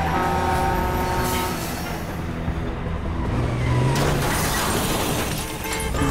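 Street traffic with a city bus engine running, then a car crash in the second half: an impact with glass shattering.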